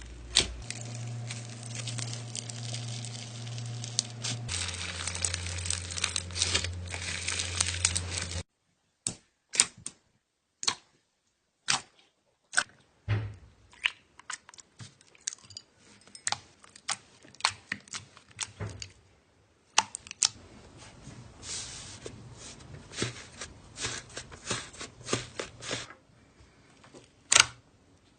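Slime being squeezed and worked by hand, making a dense crackling, then a string of separate sharp clicks and pops, and crackling again near the end.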